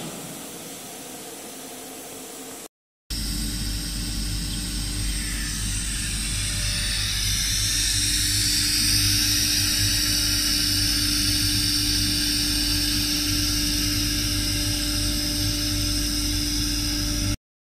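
ATC CNC woodworking router running: a steady high spindle whine that climbs in pitch about five seconds in and then holds, over a rushing hiss and a low hum. The sound drops out briefly about three seconds in.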